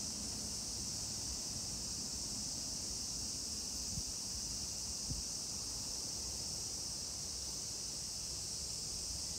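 Steady, unbroken high-pitched buzz of a summer insect chorus, with a low rumble of wind on the microphone and two faint knocks about four and five seconds in.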